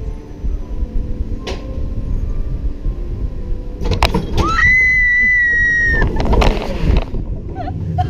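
Wind rushing and buffeting on a rider's microphone on a drop-tower ride. About four and a half seconds in, a rider's high scream rises and holds for about a second and a half.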